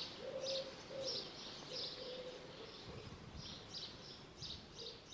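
Outdoor birdsong: a string of short high chirps, roughly one or two a second with a pause of a second or so midway. Under it, a fainter, lower wavering call comes and goes in the first two seconds.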